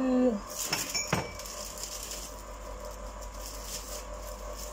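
Two light clinks of kitchenware about a second in, each with a brief high ring, over the faint steady hum of a running ice cream machine.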